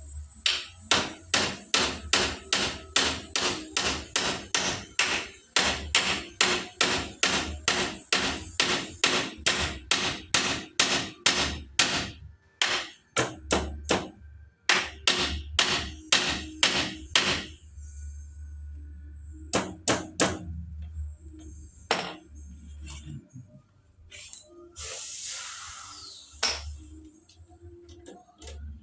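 Hammer blows driving nails, a steady run of about two to three strikes a second that breaks off after about seventeen seconds into scattered single strikes, with a brief scraping noise near the end.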